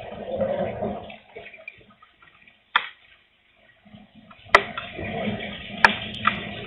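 Gusty wind and light rain: a rushing gust dies away about a second in and picks up again about four seconds in. A few sharp taps, likely raindrops hitting close by, come through over it.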